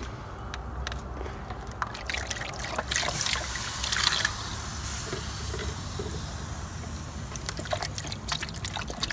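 Liquid poured from a plastic measuring pitcher into a pot of beef stew, trickling and splashing. It swells louder about three to four seconds in, with scattered small clicks.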